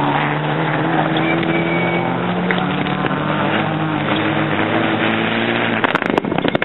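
Rally car engine running hard at a steady drone, its pitch drifting slowly, with a short burst of sharp cracks about six seconds in as a car passes close.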